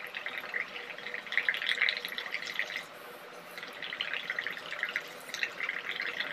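Blowing through a straw into a bowl of soapy water: a steady bubbling and crackling as the foam froths up. Two long blows with a short pause about three seconds in.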